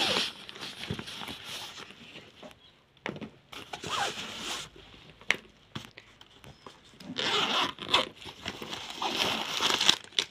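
Zipper on a fabric drone carrying bag being pulled in several separate noisy strokes, the longest near the end, with a single sharp click midway.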